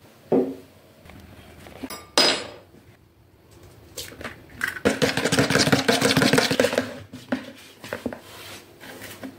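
Eggs cracked and then beaten briskly in a plastic mixing bowl: a sharp crack about two seconds in, then a couple of seconds of fast, dense clicking and scraping from the beating, followed by a few light clinks of a spoon against the bowl.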